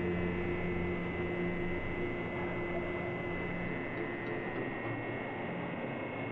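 Steady hum and noise of textile printing and drying machinery running, with a high steady whine. A few held low tones, the tail of background music, fade out about halfway through.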